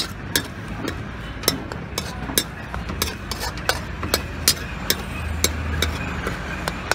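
Long steel ladle clanking and scraping against a large aluminium kadai as Maggi noodles are stirred and tossed: a steady run of sharp, irregular clanks, two or three a second.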